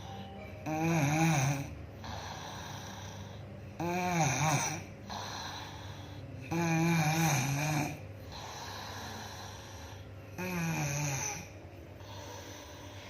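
Woman snoring in her sleep: four loud snores about three seconds apart, each about a second long with a wavering pitch, and quieter breathing between them.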